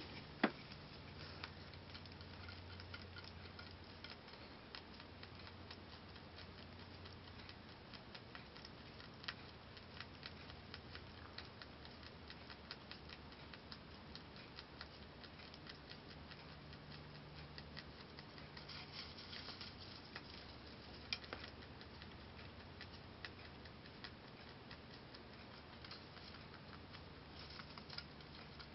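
Holland lop rabbit chewing timothy hay: a steady run of small, quick, crisp crunching clicks, faint, over a low hum, with one sharper click about two thirds of the way in.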